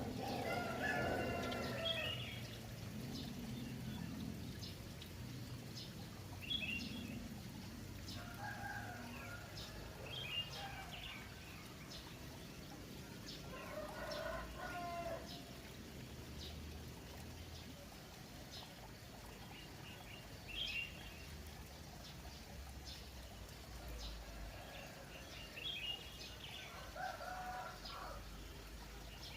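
Roosters crowing several times, with small birds chirping in short high notes between the crows, over a steady background of trickling water.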